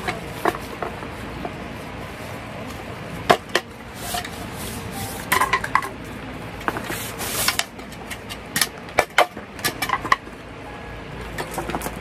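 Irregular clinks and knocks of cookware and utensils being handled, some ringing briefly, with a short rustling hiss about seven seconds in.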